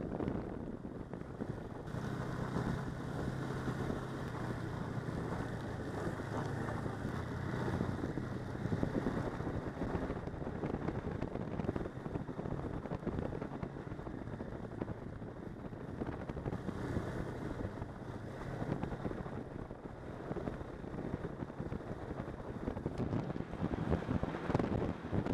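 Snowmobile engine running steadily while riding along a snow trail, with wind rushing over the microphone.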